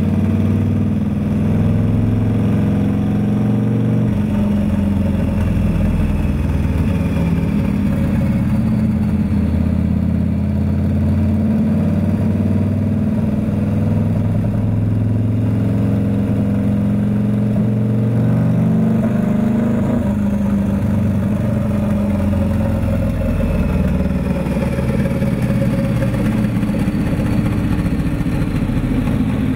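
Turbocharged Harley-Davidson V-Rod V-twin running steadily at light throttle on a chassis dyno, held around 2,500 rpm in fifth gear while its fuel map is tuned.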